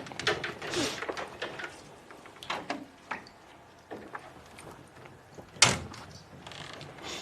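Scattered clicks and knocks of handling, busiest in the first second or so, with one sharp bang about five and a half seconds in.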